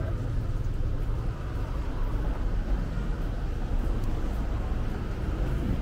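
Busy city road traffic: a steady low rumble of vehicles going by.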